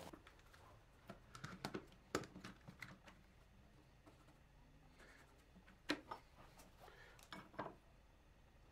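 Near silence with a few faint taps and light scratches: a small metal square set down on a hardwood board and a pencil drawing a marking line along it.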